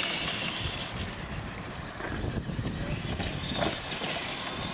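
Two radio-controlled monster trucks racing across a dirt track: a steady noise of their motors and knobby tyres running over loose dirt.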